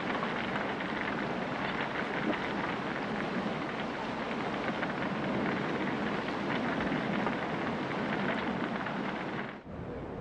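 A large fire burning: a steady crackling rush of noise that cuts off about nine and a half seconds in.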